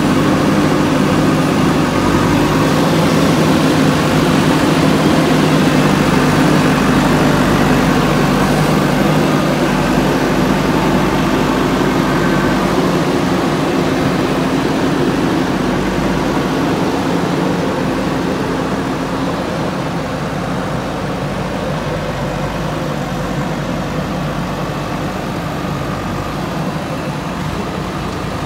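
JCB backhoe loader's diesel engine running steadily while its backhoe arm digs and dumps soil. The sound grows gradually quieter over the second half.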